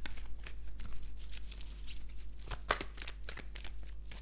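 A deck of oracle cards being shuffled by hand: irregular papery clicks and slides of cards against each other, a few a second, with a sharper snap near the middle.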